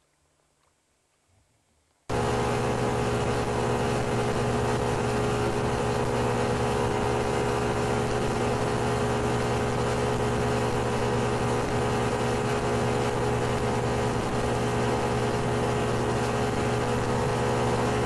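Near silence for about two seconds, then an abrupt cut to a bass boat's outboard motor running steadily at speed, with wind and water rushing over the microphone.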